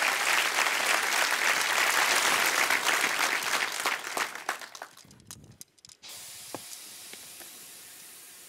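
Audience applauding, the clapping dying away about four to five seconds in; after a brief drop to near silence, a faint steady hiss.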